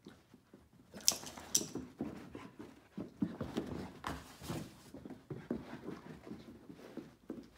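Two dogs play-wrestling on carpet: irregular scuffling and mouthing noises, with two sharp clicks about a second in.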